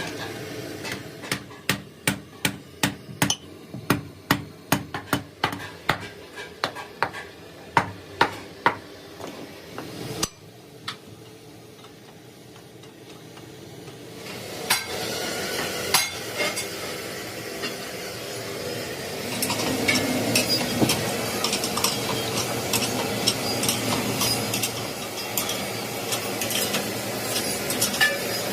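Tool work on a tractor tyre under repair: a run of sharp hammer-like taps, about two a second, for the first ten seconds. After a brief lull, a steady scraping and rubbing noise with occasional clinks sets in and grows louder.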